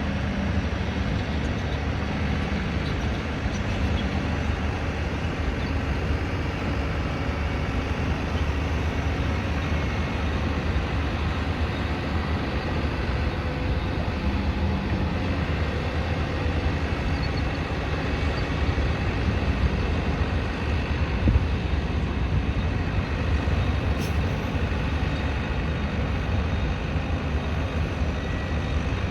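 Construction site ambience: a steady low rumble of truck and heavy-machinery engines, with one short knock about twenty seconds in.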